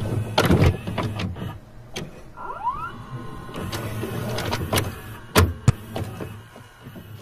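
VHS tape-glitch sound effects: crackling static and a low hum, with a short rising whine about two and a half seconds in and two sharp clicks near the end.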